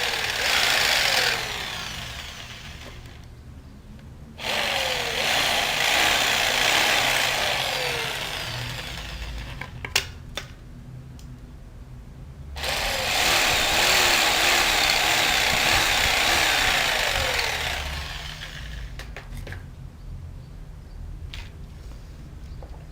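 Handheld power tool cutting, in three long runs with pauses between, its pitch falling as it spins down after each run. There is a sharp click in the second pause.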